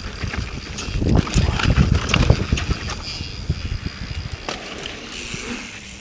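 Yeti SB4.5 mountain bike rolling down a rough dirt trail: irregular thumps and rattles as it runs over bumps, heaviest a second or two in, with wind rumbling on the microphone.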